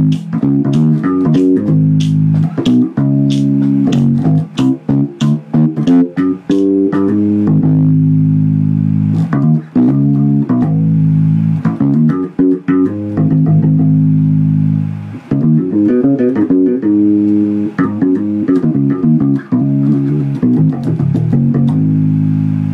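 Electric bass guitar played solo: quick runs of plucked notes with sharp, clicky attacks, alternating with held notes, and a long note left ringing near the end.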